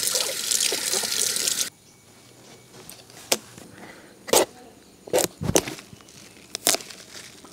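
A stream of running water splashing over a whole ash gourd as it is rubbed clean by hand. The splashing cuts off suddenly after about a second and a half and is followed by a handful of separate sharp knocks and taps.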